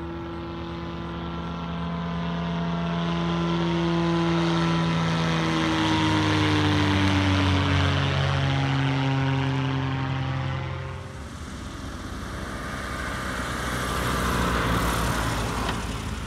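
Viking 130 auto-conversion engine and propeller of a Zenith CH-650 passing low overhead. The pitch drops as it goes by, and it is loudest a few seconds into the pass. About 11 s in the sound changes to the plane's engine running on the runway, growing louder toward the end.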